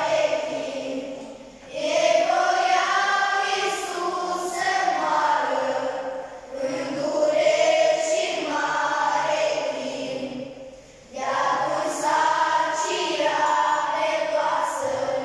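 Children's choir singing together in phrases of about four to five seconds, with short breaks between them.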